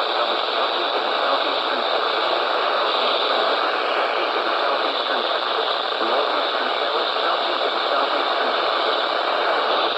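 Radio static: a steady hiss from a weakly received station, with a faint voice barely showing beneath it.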